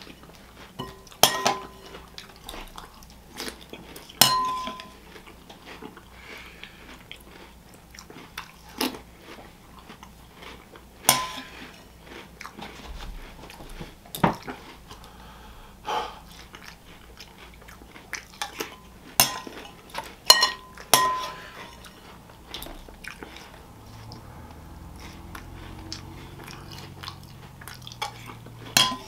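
A spoon clinking against a bowl about ten times, each strike ringing briefly, between bouts of chewing soggy cereal. A faint low hum comes in near the end.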